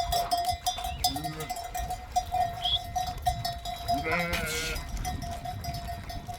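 Sheep bleating in a grazing flock, a few short calls and a louder one about four seconds in, over the steady clanking of a livestock bell.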